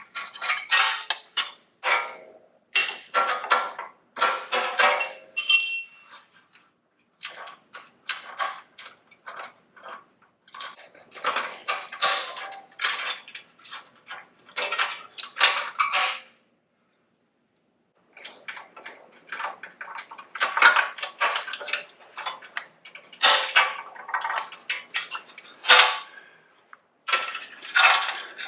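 Metal tools and small parts clinking and rattling in bursts of hand work on a motorcycle, as a cover and the exhaust-valve cables come off, with a pause of about two seconds a little past the middle.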